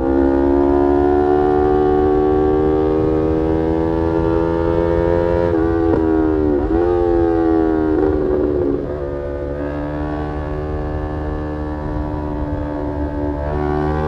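Yamaha R3's 321 cc parallel-twin engine through an Arrow aftermarket exhaust, heard from the rider's seat. The engine note climbs slowly under throttle, dips and recovers twice around the middle, then settles quieter and lower before picking up again near the end.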